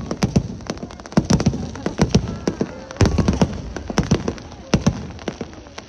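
Aerial fireworks bursting in quick succession: an irregular run of sharp bangs and cracks, several a second.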